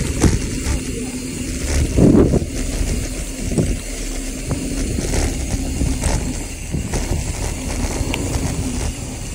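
Mountain bike riding fast down a dirt trail: tyres rolling over the dirt, wind on the microphone and the bike rattling over bumps, with a few harder jolts, the loudest about two seconds in.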